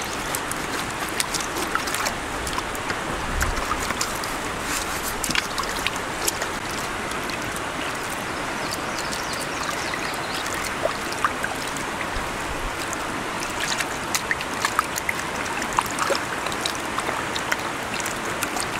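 Water splashing and dripping as sluice box mats are rinsed in a plastic tub: water pours off a lifted mat back into the tub, and the mats are dunked and swished in muddy water. A steady rush of flowing water runs behind, with small splashes and drips scattered throughout.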